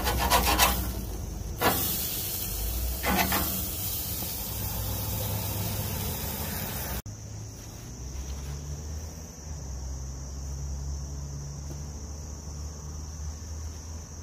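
Beef patty sizzling on a hot barbecue grill grate with a steady hiss, and a metal spatula scraping the grate in the first second or so and again about three seconds in. After a sudden cut about seven seconds in, crickets chirr steadily over a low hum.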